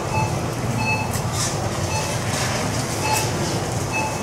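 Supermarket ambience: a steady hum and low rumble, with a faint short beep repeating about once a second and a few brief rattles and rustles.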